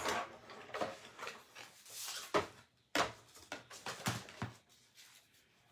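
Paper and craft tools being handled on a cutting mat: soft rustling with several sharp taps and clicks, quieter near the end.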